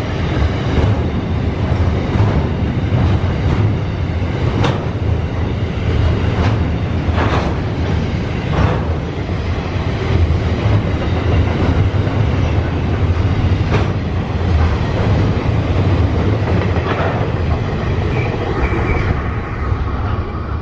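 Freight train wagons rolling past at speed: a steady heavy rumble of steel wheels on rail, with sharp irregular clicks from the wheels over rail joints. The sound drops away at the very end as the last wagon clears.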